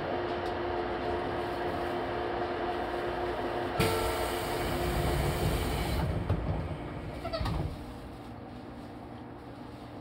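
JR Kyushu 813 series electric train standing at a station: a steady electrical hum with a whine, then about four seconds in a sudden loud hiss of compressed air lasting about two seconds, followed by some knocks before the sound drops quieter near the end.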